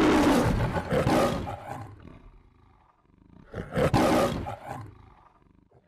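Two roars in the manner of the MGM lion logo: one that fades out about two seconds in, and a second starting about three and a half seconds in and fading away.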